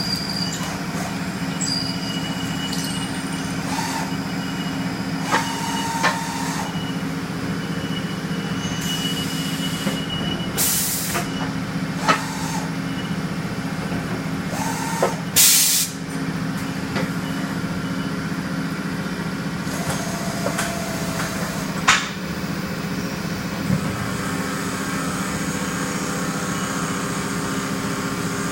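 2002 Fryer MC 30 vertical machining center running with a steady machine hum, broken by scattered clicks and short tones. Two brief bursts of air hiss come around ten and fifteen seconds in.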